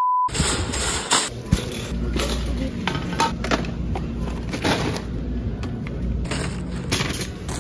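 A steady censor bleep tone stops a moment after the start. Then groceries are handled in a wire shopping cart: bottles and packages knock, clatter and rustle against each other and the cart, over a steady low rumble.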